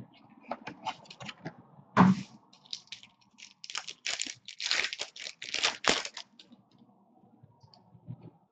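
Clear plastic wrapper of a baseball card pack being torn open and crinkled by hand: a sharp rip about two seconds in, then a run of crackling between about four and six seconds.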